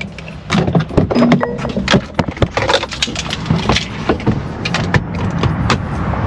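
Irregular knocks, clicks and rustles from a handheld phone being moved about inside a car, over a low steady hum.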